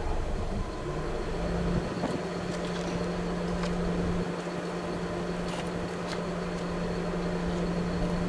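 Vehicle engine idling: a steady low hum and rumble, with a droning tone that sets in about a second in and a few faint ticks.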